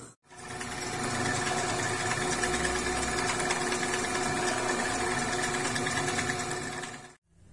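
Drill press running steadily, its bit cutting into the hub of a metal multi-groove V-belt pulley beside the bore to make a keyway. It is a steady motor hum with a few held tones and stops suddenly near the end.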